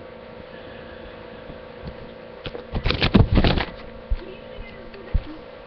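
A steady buzzing hum with a burst of loud rustling and bumping a little past halfway, as the webcam is handled and moved. Two single knocks follow.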